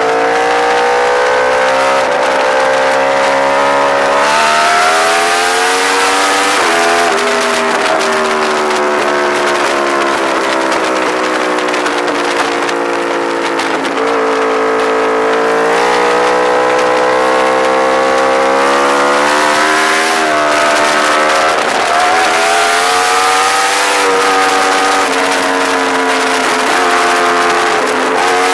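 Yamaha R1 inline-four engine at speed on track, its pitch climbing through the revs and then dropping sharply several times at gear changes and braking, over a steady rush of wind on the bike-mounted camera.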